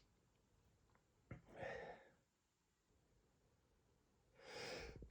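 Near silence with a man's faint breathing between sneezes: a small click and a breath out about a second and a half in, then a breath in growing louder near the end as the next sneeze builds.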